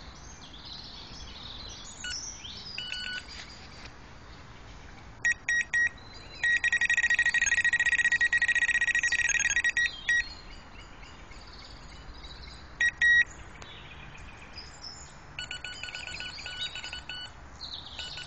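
Electronic carp bite alarms bleeping: three short beeps about five seconds in, then rapid continuous bleeping for about three and a half seconds, two more beeps, and near the end a run of pulsing beeps in two different tones.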